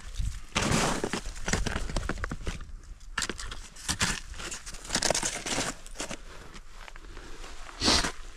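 Snowshoes crunching and scraping on hard snow in irregular steps.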